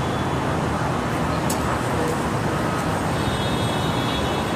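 Steady downtown street traffic noise: the continuous rumble of cars and other vehicles on the road.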